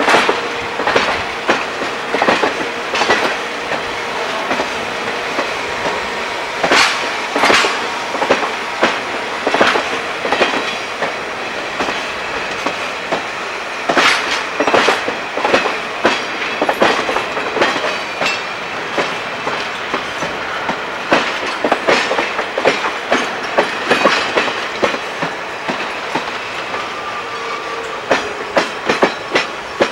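Passenger coaches of a steam excursion train rolling slowly past, their wheels clicking over the rail joints, often in quick pairs as each truck crosses, over a steady rolling rumble. A thin wheel squeal comes and goes.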